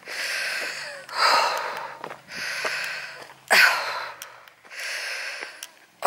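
A woman's heavy, wheezy breathing, about five breaths in and out, as she climbs a steep hill out of breath. She suspects the wheeze comes from air pollution.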